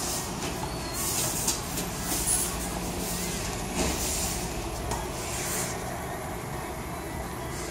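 Steady low room rumble of a busy office kitchen, with several short hissing noises over it.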